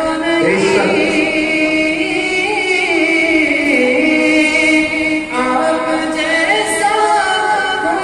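A man singing an Urdu naat (devotional poem) into a microphone, drawing out long held notes that waver and turn in pitch. One long phrase gives way to a new one about five seconds in.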